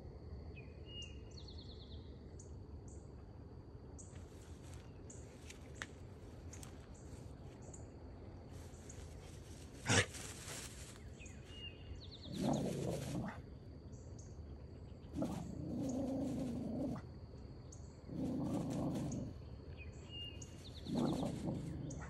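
A dog giving four low, drawn-out whining vocalisations in the second half, each lasting one to two seconds. Underneath, a steady high insect drone and scattered bird and insect chirps run on, with one sharp knock about ten seconds in.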